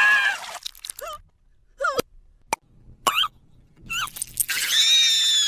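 High-pitched, sped-up cartoon crying sound effect: a wavering wail stops about half a second in. A few short squeaks and clicks follow with quiet gaps between them, and the high warbling wail starts again near the end.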